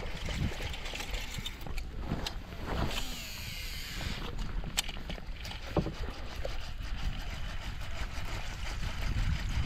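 Wind on the microphone and water lapping against a small fishing boat, with a few sharp clicks.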